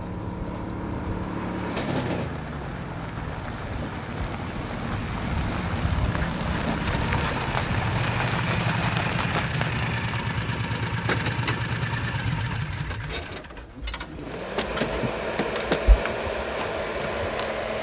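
A motor vehicle running steadily, dipping briefly near the end, with one sharp knock shortly after.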